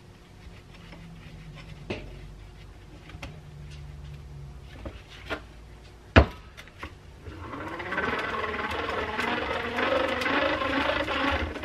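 Antique hand-crank bench grinder (Keystone Iron City) being turned by hand. A sharp knock comes about six seconds in, then the freshly oiled gears and spindle whir steadily for about four seconds as the wheel spins, running freely.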